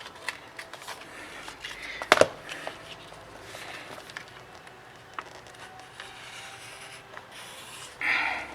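Hard plastic pry tool scraping and clicking as it is worked through the adhesive under a Samsung Galaxy Tab A 10.1 (SM-T510) screen glass, with one sharp snap a little after two seconds in.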